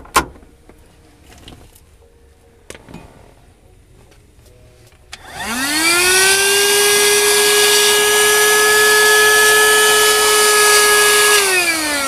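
A couple of sharp clicks, then about five seconds in a Voroly VR-12SBVC 12-volt handheld car vacuum cleaner is switched on: its motor whines up to speed and runs steadily with a loud rush of air. Near the end it is switched off and the whine falls as the motor winds down.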